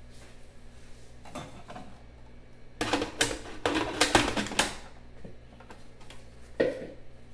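Plastic clicks and clatter of a food processor's lid and feed-tube pusher being fitted onto the bowl. A quick run of knocks comes about three seconds in, and one more knock near the end.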